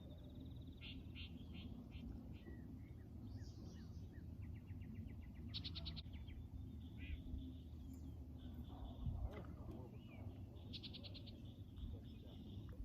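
Songbirds singing and calling, faint, with several short rapid trills, over a low steady rumble of wind.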